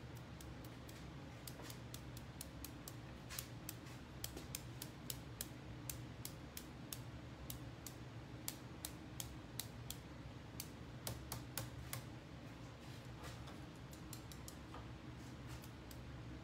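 Ebru marbling brush loaded with paint, tapped again and again to sprinkle drops onto the size for a stone pattern: a string of sharp, light clicks, a few a second, thickest in the middle. A low steady hum runs underneath.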